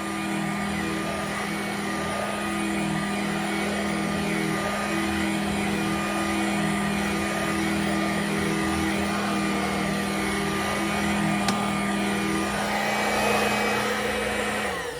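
Dirt Devil two-speed handheld vacuum running steadily on its low speed while cleaning a chair's upholstery. Near the end it is switched off and the motor winds down, its hum falling in pitch.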